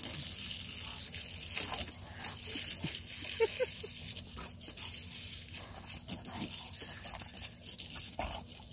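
Garden hose spraying water with a steady hiss while a large dog snaps and bites at the stream, with irregular short snapping and splashing sounds.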